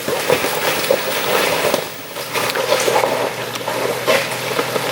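A 4x4's engine running slowly as it crawls over wet rock and mud, with irregular crunches and clicks from the tyres on the rock; a steady engine hum comes in about two seconds in.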